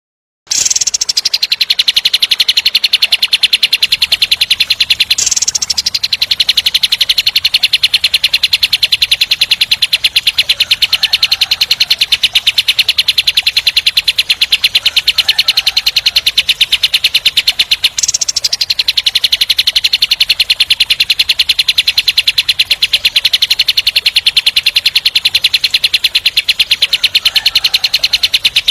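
Kapas tembak song: a long, very fast rattling trill of tightly packed notes, the 'tembak speed rapat' roll. It breaks off briefly twice and restarts each time with a short higher note.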